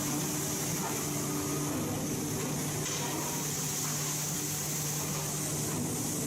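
Steady hum of forging-shop machinery: a low, even drone with a hiss above it and no hammer blows, typical of a hydraulic forging press's power unit running between strokes.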